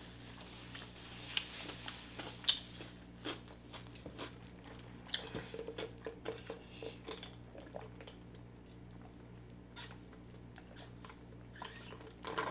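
A person chewing and crunching food close to the microphone: irregular small crunches and clicks, thickest around five to seven seconds in.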